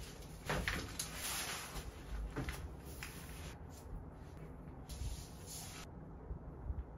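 Brown kraft pattern paper rustling and crinkling as a roll of it is unrolled and spread flat on a table, with a few light knocks. The rustling stops near six seconds in.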